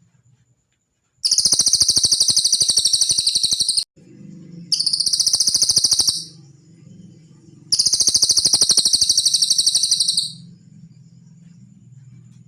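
Cililin songbird singing three rapid, high-pitched trills, each a fast run of repeated notes lasting about one to three seconds, the second one shorter, over a faint low hum.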